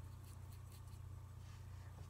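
Faint strokes of a wide flat brush laying watercolor paint across paper, over a steady low hum.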